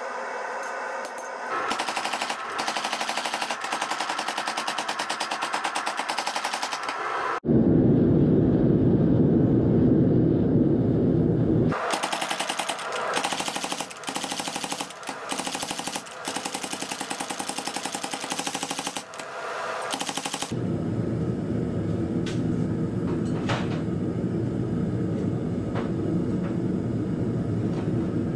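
Power hammer striking a hot steel billet in fast, evenly spaced blows, in two long runs. A loud low rush comes between the runs, and from about two-thirds through the forge's burner runs steadily with a few light ticks.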